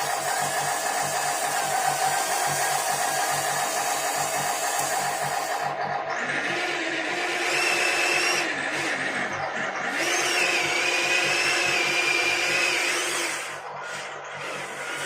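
Electric motor of a radio-controlled model vehicle running with a steady whine, then spinning up to a higher whine twice. Each time it holds for a few seconds before dropping away.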